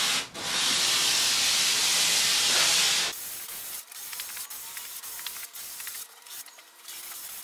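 Sandpaper rubbed by hand along the edge of a mahogany plank: a steady hiss that stops about three seconds in, followed by faint scattered clicks and rustles.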